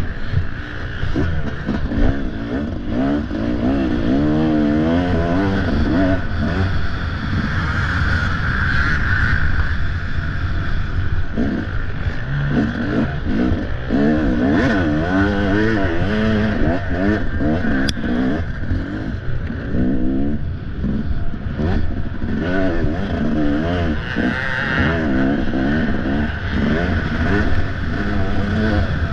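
Off-road motorcycle engine revving up and down again and again, its pitch rising and falling every second or so as the throttle is worked, with a few clattering knocks.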